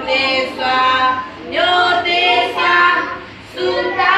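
A woman and a group of young children singing a song together, in short held phrases with brief breaks between them.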